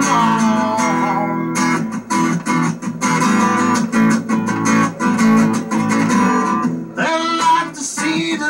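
Acoustic guitar strummed in a steady blues rhythm.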